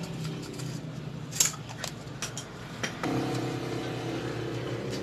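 A steady engine hum, which grows louder about three seconds in, with a few sharp metallic clicks and clinks from parts being handled.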